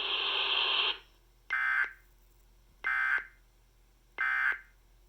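Emergency Alert System end-of-message: three short bursts of warbling SAME digital data tones, evenly spaced about a second and a half apart, marking the end of the alert. They come after about a second of hiss.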